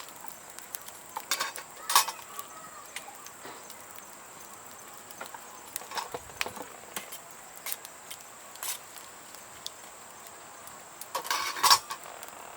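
Metal cooking utensils clinking and clattering against a small camp cooking pot, in a few short clusters. The loudest clatters come about two seconds in and again near the end, with a brief ring after the first.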